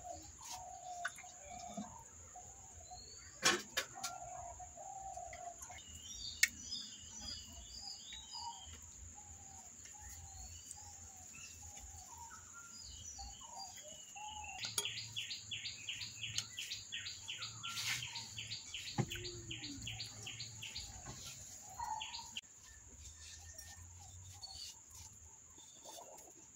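Several birds chirping and calling, with a fast run of evenly repeated high notes lasting about four seconds in the middle, over a steady high whine. A few sharp clicks stand out.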